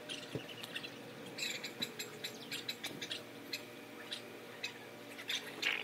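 Irregular small ticks and crackles as battery acid is fed through a plastic tube into the cells of a 6-volt Yuasa motorcycle battery.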